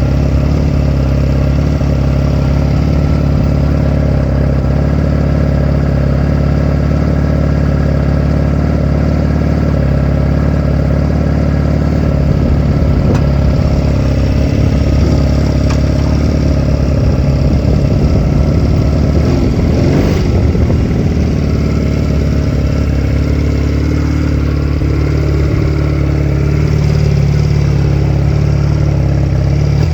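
Honda 250cc motorcycle engine running under way, steady at first, its note shifting up and down in the second half and rising near the end as the throttle changes.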